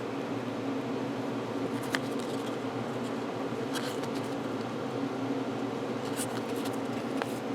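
A steady low hum runs underneath, with a few light clicks and rustles of trading cards being handled and slid against each other.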